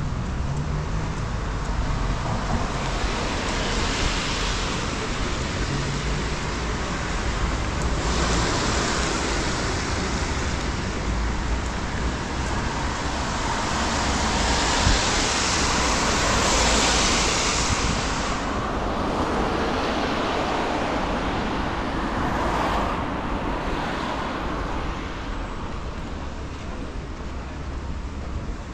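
Street traffic on a rain-wet road: several vehicles pass with a tyre hiss that builds to its loudest about midway and fades toward the end.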